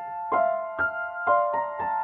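Background music: a slow, gentle piano melody of single struck notes, about two a second, each left ringing.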